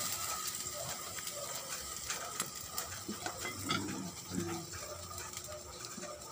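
A pot of chicken curry simmering on the stove, with soft scattered bubbling clicks over a faint steady hum. A short faint call is heard about four seconds in.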